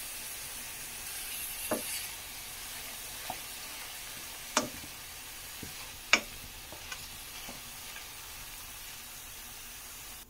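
Mushrooms sizzling in oil in a stainless steel pan while a metal spoon stirs them, clicking sharply against the pan a few times.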